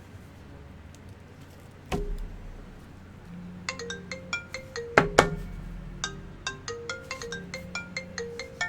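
A single thump, then a short electronic melody of quick, plinking pitched notes like a phone ringtone or alert tune, with two louder hits partway through.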